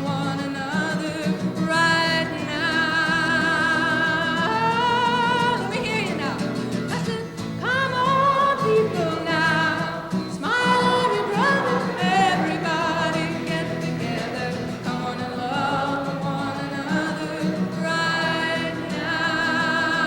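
A woman singing a folk song live, holding long notes with a wavering vibrato and sliding between pitches, over a strummed acoustic guitar.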